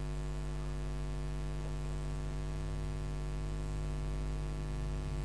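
Steady electrical mains hum, with a stack of evenly spaced overtones, holding an even level throughout.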